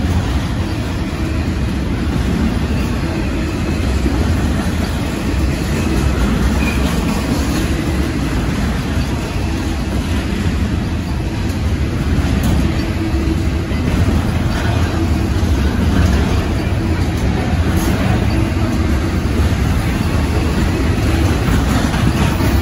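Intermodal freight cars of a slow Norfolk Southern train rolling past, a steady rumble of wheels on the rails.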